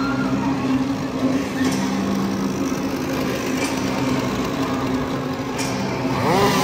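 Two-stroke chainsaw engine idling steadily. A person's scream rises over it near the end.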